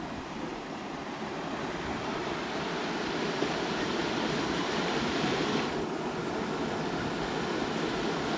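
Waterfall rushing: a steady, even roar of falling water that grows slightly louder over the stretch.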